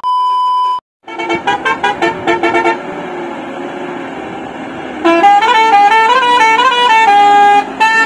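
Indian truck musical horn playing a tune. A held tone stops just under a second in, quick pulsing notes follow, and from about five seconds a louder melody of notes steps up and down.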